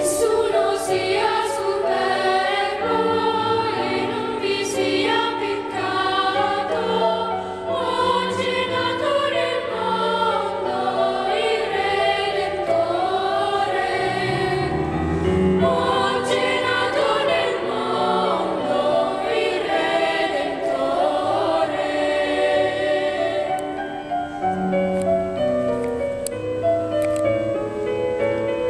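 Children's choir singing an Italian Christmas carol in several parts, without a break.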